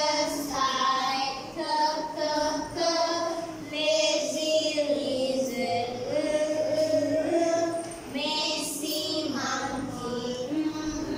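A group of young children singing a phonics song together, the singing continuing without a break.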